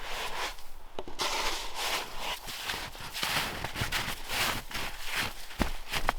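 Irregular crunching footsteps and rustling in deep snow, with a few sharp clicks among them.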